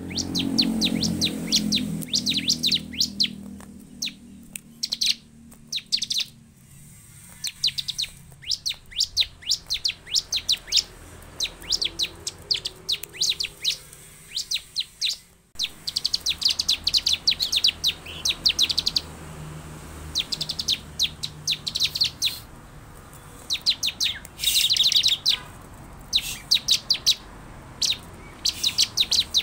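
Bar-winged prinia (ciblek) calling: rapid runs of sharp, high chips and trills, repeated in short bursts with brief pauses between. A low rumble sits under the calls at the start and fades within the first few seconds.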